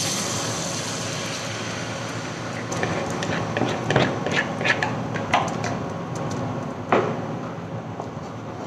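Pumpkin purée poured into a hot, oiled nonstick frying pan, sizzling with a steady hiss. Over it come sharp metal clicks, a quick run from a spoon scraping out the mixing bowl and a ladle knocking the pan, with one sharp knock near the end.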